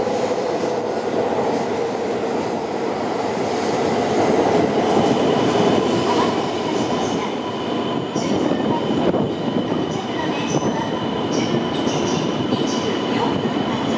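E2 series Shinkansen rolling slowly into the platform as it arrives, with a steady rumble of wheels and air. A whine falls slowly in pitch over the first few seconds, and a steady high squeal sets in about five seconds in.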